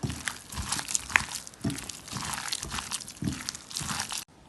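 Hand mixing pieces of raw green jackfruit into a thick pakora batter: an irregular run of soft clicks and noisy rustles that cuts off suddenly near the end.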